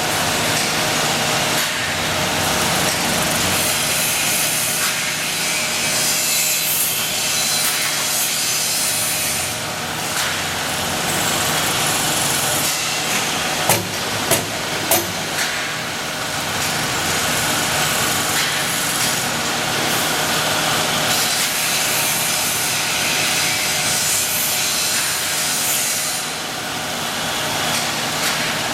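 Multi-head CNC drilling machine drilling steel: a steady cutting noise, with three sharp knocks about halfway through.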